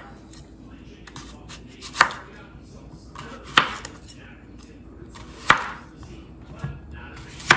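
Chef's knife cutting through red potatoes and striking a bamboo cutting board: four sharp chops, one every one and a half to two seconds, with small knife and board clicks between them.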